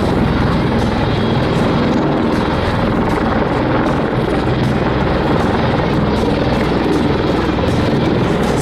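MV-22 Osprey tiltrotors flying in a vertical assault demonstration: a loud, steady rotor beat over a continuous turbine roar.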